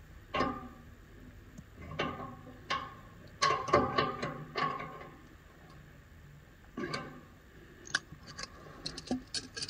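Irregular sharp clicks and knocks as a hand works at a newly fitted chrome radiator valve and its nuts, some with a short ring, with a quick flurry of small ticks near the end.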